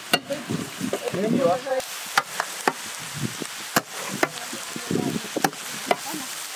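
Sliced snake gourd being stirred and tossed with a long-handled metal spatula in a large steel frying pan, the spatula knocking and scraping on the pan several times over a light sizzle of frying.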